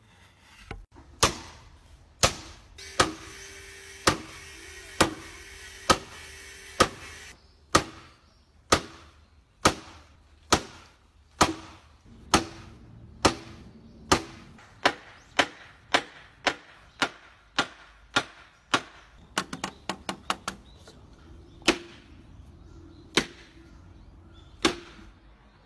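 A hammer striking wood in sharp knocks, about one a second, coming faster through the middle. About three-quarters through there is a quick run of lighter taps, then three slower blows near the end.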